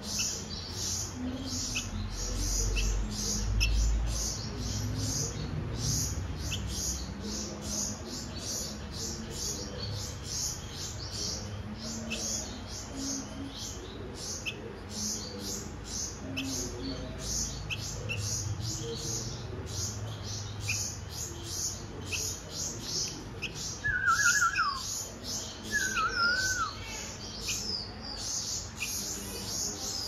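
Fledgling bulbuls giving a steady series of short, high begging chirps, about two a second. Two louder whistled calls with falling, wavering pitch come near the end, and there is a brief low rumble a few seconds in.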